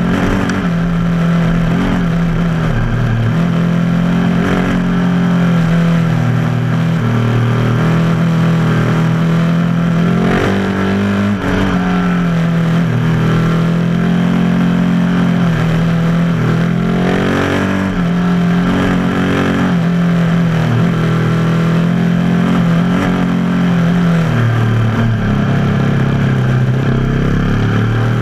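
Dirt bike engine running under way, its pitch repeatedly rising and falling as the throttle is opened and closed, with a couple of stronger revs about ten and seventeen seconds in.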